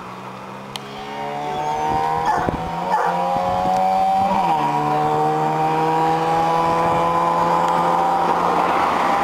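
Honda CB125 cafe racer motorcycle engine pulling hard toward the microphone, its pitch climbing. About four seconds in it drops as the bike shifts up a gear, then climbs again while the sound grows louder.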